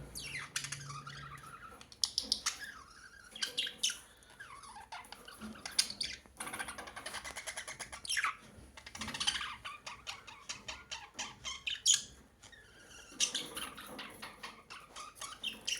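Birds chirping and squawking in a busy chatter of short calls and rapid trills, with several calls sweeping down in pitch.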